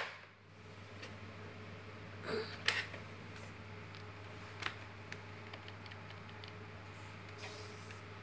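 Computer keyboard keys clicking as a key is tapped repeatedly to enter the BIOS setup: a few louder clicks a couple of seconds in, then a run of light taps. A steady low hum runs underneath.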